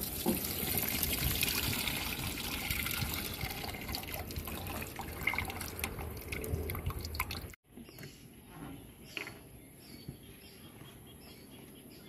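Used engine oil trickling and dripping from a removed spin-on oil filter into a steel pot. It stops abruptly about seven and a half seconds in, leaving a few faint taps.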